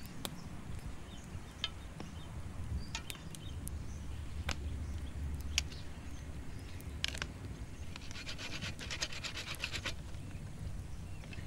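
Knife blade scraping and shaving a wooden stick in a quick run of strokes for a couple of seconds near the end, after scattered sharp crackles from a wood campfire.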